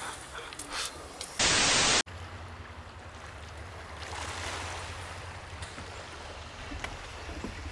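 A half-second burst of loud hiss-like noise that stops abruptly, followed by calm seaside ambience on a pebble shore: a steady low rumble with a soft wash of small waves that swells a little in the middle.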